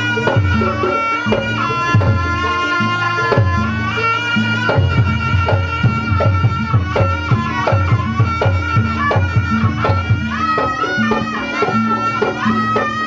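Kuda kepang ensemble music: a shrill reed trumpet (slompret) plays a wavering, ornamented melody over driving hand-drum (kendang) patterns.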